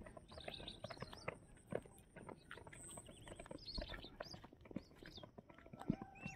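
Faint, irregular footsteps of several runners jogging on a gritty, sand-covered rock slope.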